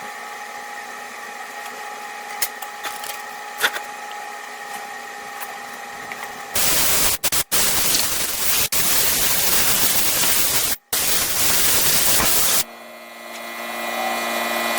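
Stick-welding arc hissing and crackling on a broken bolt stub for about six seconds, from about six and a half seconds in, cutting out briefly a few times, as weld is built up to extract the bolt. Before and after it there is a steady hum with a few clicks.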